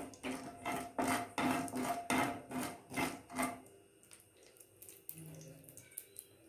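A spatula scraping around a non-stick kadai as it stirs mustard seeds and urad dal frying in oil, in strokes about three a second. About three and a half seconds in the stirring stops, leaving only a few faint clicks.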